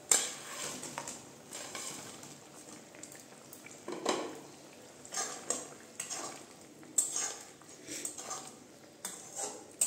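Ceramic plate knocking against the rim of a metal kadai as fried pea fritters are slid into curry gravy, followed by a wooden spatula stirring and scraping in the pan with a series of irregular knocks.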